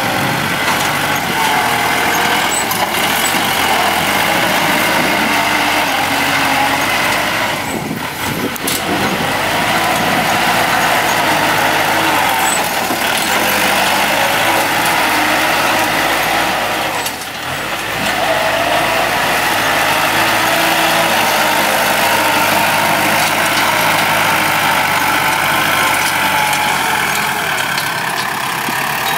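Kubota tractor's diesel engine running under load while its front blade pushes soil and rock. The engine note rises and falls, with two short dips in loudness.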